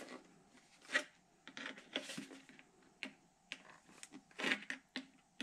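Needle-nose pliers crimping the end of a thin sheet-metal stovepipe to shrink its diameter: irregular clicks and crinkles of the metal being bent into folds.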